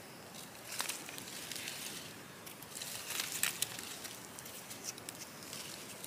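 Dry leaf litter rustling and crackling, with scattered sharp crackles, the loudest about three and a half seconds in.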